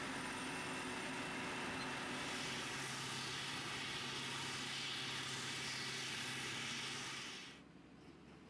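Claas Jaguar forage harvester and the tractors running beside it working flat out while chopping maize: a steady, dense engine and machinery din with a held engine tone. About seven and a half seconds in it drops off sharply to a much fainter level.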